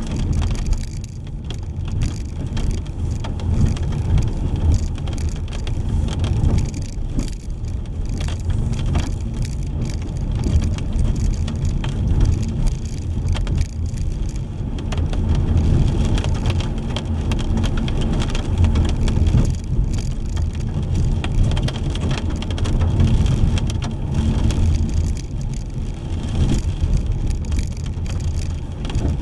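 Car driving in the rain: a steady low road and engine rumble under the continuous hiss of rain and wet tyres.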